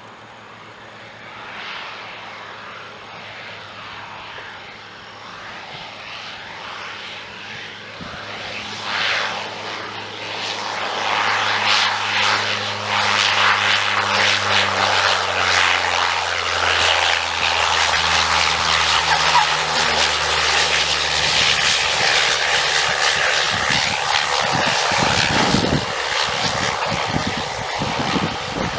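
The single Pratt & Whitney PT6A turboprop of a Cessna 208 Caravan drones steadily, growing louder as the plane closes in on landing. Its propeller tones drop slightly in pitch as it passes low along the runway.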